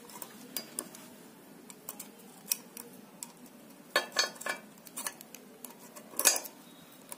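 Light metallic clicks and clinks of pliers working the threaded cap of a sewing machine stand's ball-bearing wheel hub, tightening it down over the bearing balls. A denser cluster of clinks comes about four seconds in and another near the end.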